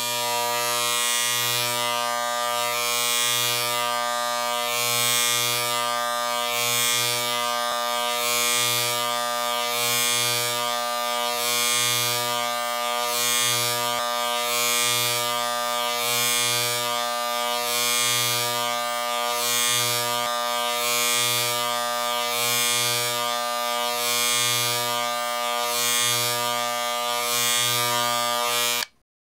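Electric shaver running: a steady buzz that swells and eases a little about once a second, then cuts off abruptly near the end.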